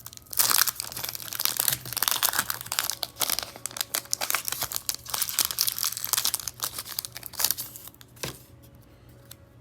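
A Pokémon TCG booster pack's foil wrapper being torn open and crinkled: a dense run of crackling that stops about eight seconds in.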